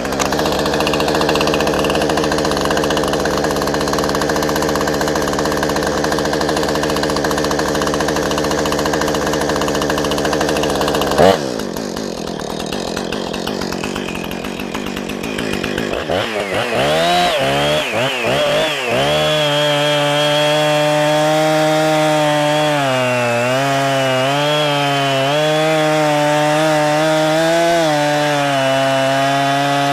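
Husqvarna 460 Rancher 60cc two-stroke gas chainsaw, just started, running steadily for about eleven seconds. After a sharp click it drops to a lower idle, revs up and down a few times, then runs at full throttle cutting into a large log, its pitch sagging and recovering under load.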